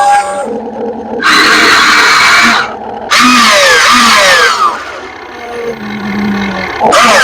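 RC excavator working, its motors and gearing giving two loud bursts of grinding, whirring noise of about a second and a half each, the second with falling whines as it slows. A shorter burst follows near the end.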